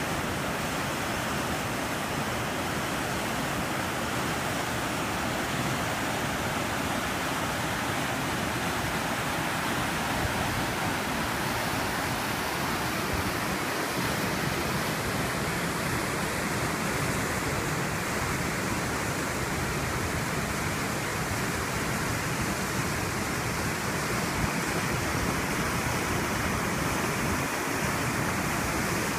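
River rapids rushing over and between granite boulders: a steady, unbroken rush of whitewater.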